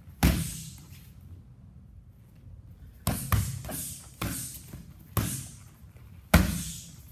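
Gloved punches and kicks smacking into Muay Thai pads and a belly pad: six sharp hits with a short echo, one about a quarter second in, then five more from about three seconds on, the last near the end the loudest.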